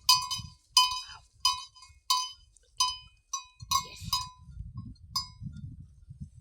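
A cowbell on a grazing cow clanks unevenly, about ten strokes over five seconds, then stops. This is the bell that lets herders find the animal in the bush. A low rumbling noise runs underneath from about halfway.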